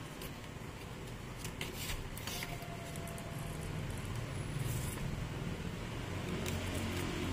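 Light clicks and scrapes of disassembled angle-grinder parts being handled, with a few clicks about two seconds in, over a steady low hum.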